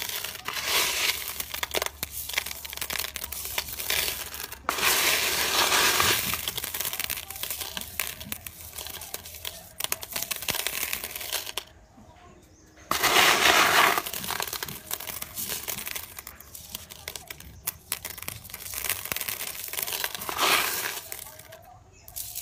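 A heap of small rough gemstones being stirred and scooped by hand, the stones clicking and rattling against one another in a dense crunchy stream. It swells louder three times as handfuls are lifted and let fall.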